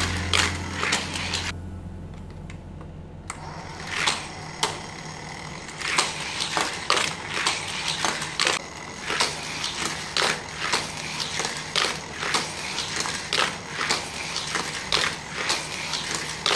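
Die-cast toy cars clattering around a Hot Wheels motorized loop track, with repeated plastic clicks and clacks about twice a second as they are shot through the motorized booster and around the loop. There is a short lull about two seconds in.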